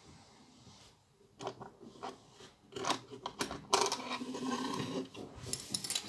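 Hands handling Lego bricks and a rubber eraser: a few separate plastic clicks and knocks, then a busier stretch of rubbing and clatter as the eraser is slid out of the Lego housing, and more sharp clicks near the end.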